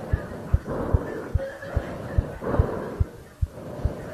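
A steady, even beat of low thumps, about two to three a second, like a kick drum in background music.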